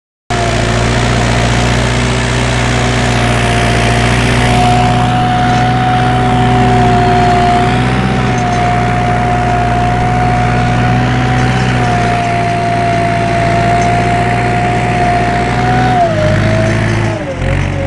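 Massey Ferguson 165 tractor engine running steadily under load while pulling a plough, with a steady high whine over the engine note. The sound cuts in just after the start, and near the end the pitch sags briefly and recovers.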